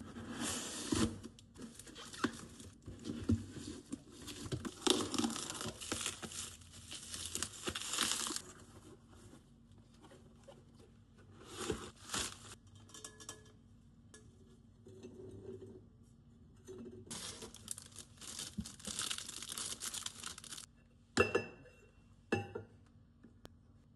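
Packaging being torn open and crinkled by hand, in long spells of rustling with quieter handling between them. Two sharp knocks come near the end.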